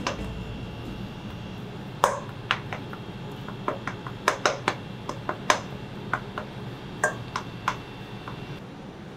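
Rice paddle tapping and scraping against a stainless steel mixing bowl while sushi rice is mixed, giving a series of irregular sharp taps and clicks that start about two seconds in.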